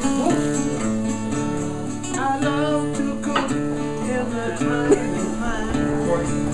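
Background music led by guitar, with sustained chords under a wavering melody line.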